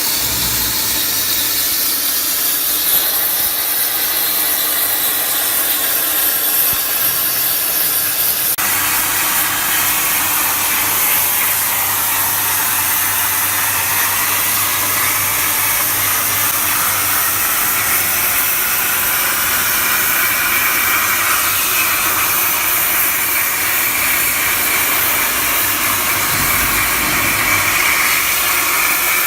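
CNC plasma cutter's torch cutting steel plate, a loud steady hiss with a low hum under it.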